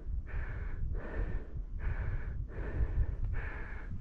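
A person breathing hard through the mouth, quick rasping breaths in and out about one every 0.7 seconds, over a low rumble of wind on the microphone.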